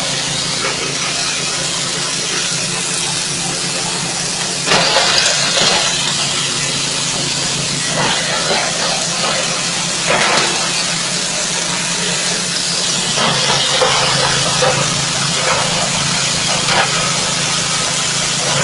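Forage chopper-grinder with screens, driven by a 6.5 hp engine, running steadily with a constant low hum and a loud rushing hiss. The grinding surges louder several times as material is fed into the hopper and milled.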